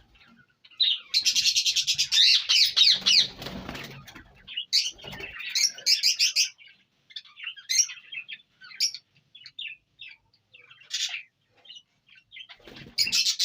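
Indian ringneck parakeet calling: a loud, fast string of rapidly repeated shrill calls about a second in, then scattered shorter squawks and chirps, with another fast string starting near the end.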